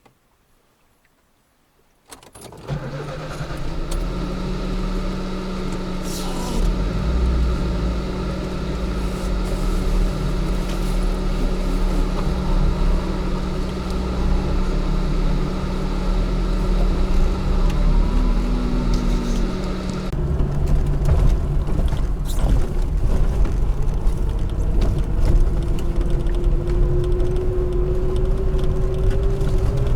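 Lada Niva's engine running steadily, starting abruptly about two seconds in after near silence. About twenty seconds in the note changes, and near the end a tone slowly rises as the car picks up speed.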